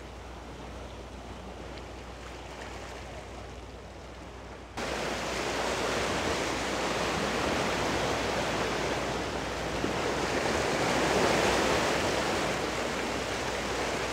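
Steady hiss of sea surf washing against a rocky breakwater. About five seconds in it abruptly becomes louder and fuller, then stays steady.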